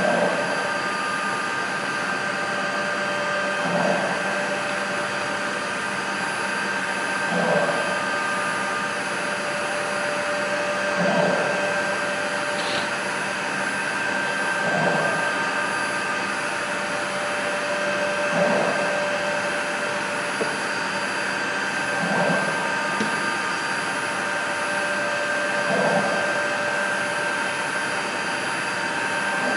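A CNC router running a cutting program: a steady high motor whine from the spindle, with a short swell about every four seconds as the axes run through a repeating toolpath.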